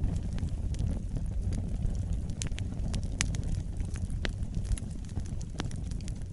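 Wood fire in a fireplace crackling: irregular sharp snaps and pops over a steady low rumble of the flames.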